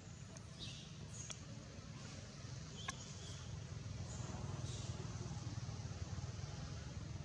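A young monkey giving a few short, high-pitched squeaks over a steady low rumble.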